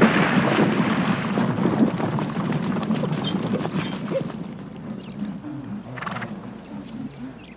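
A zebra herd stampeding away, a dense clatter of many galloping hooves that is loudest at first and fades off over the last few seconds.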